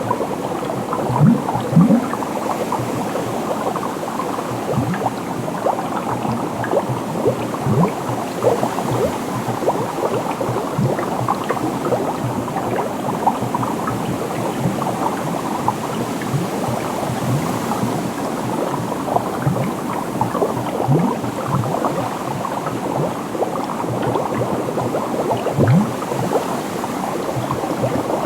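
Water bubbling steadily, with many small bubbles popping in quick, dense succession. Now and then a deeper gulp rises in pitch.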